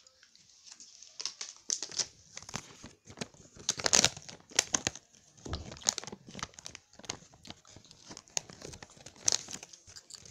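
Chocolate bar wrapper crinkling and rustling as it is handled close to the microphone: irregular crackles, loudest about four seconds in.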